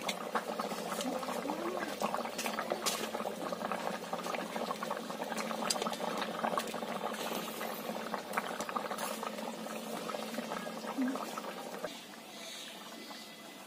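Fish curry boiling hard in a steel pan over a wood fire: a dense, rapid bubbling that drops quieter near the end.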